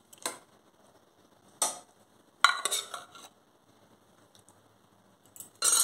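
A metal ladle clinking and scraping against a steel bowl and cooker pot as cooked dal is ladled out: a few separate knocks, with quiet between.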